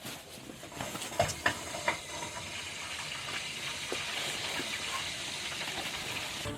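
A steady hissing noise, with a few sharp clicks about a second in.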